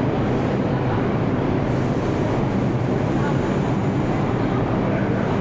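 New York City subway station ambience: a steady rumble with a low hum, and a brief brighter hiss about two seconds in.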